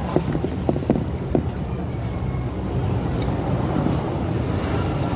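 Wind buffeting the microphone: a steady low rumble, with a few light taps in the first second and a half.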